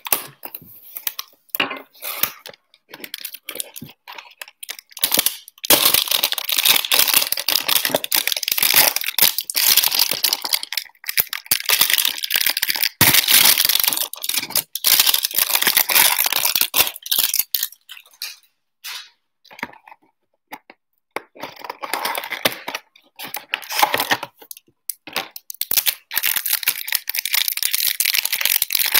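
Trading-card hanger box being opened by hand: a few light clicks of the cardboard flap, then the cellophane wrapper around the stack of cards crinkling at length as the stack is pulled out. After a short pause, more crinkling and tearing as the wrapper is torn open.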